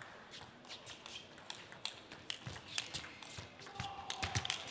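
Table tennis ball clicking: irregular sharp taps of the celluloid ball against bats, table and floor, thickest near the end, with a brief squeak about four seconds in.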